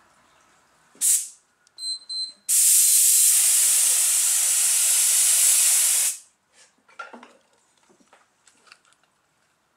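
Hydro-dipping activator being sprayed: a short puff about a second in, a couple of brief whistling spits, then a loud steady spray hiss for about three and a half seconds that cuts off sharply.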